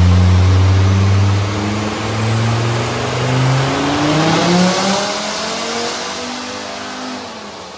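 Mercedes OM605 five-cylinder turbodiesel in a Land Rover Series I making a full-load dyno pull, its pitch climbing to a peak about four and a half seconds in, then falling away as it comes off load and winds down. A thin high whistle rises with the revs, from the BorgWarner turbocharger spooling up.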